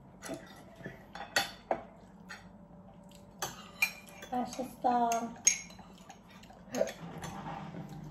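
Metal spoon and chopsticks clinking against porcelain crockery while eating, about half a dozen sharp separate clinks. There is a brief hummed voice sound about halfway through.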